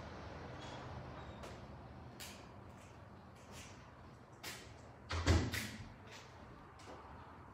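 Room noise with scattered light knocks and clicks, and one heavy thump with a sharp knock after it about five seconds in.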